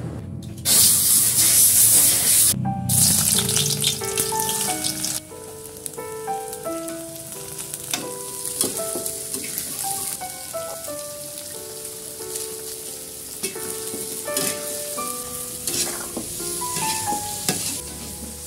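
Chopped green beans frying in hot oil in a wok: a loud burst of sizzling starts about half a second in, dips briefly, and cuts off sharply at about five seconds, after which softer sizzling and stirring clicks continue under a gentle background melody.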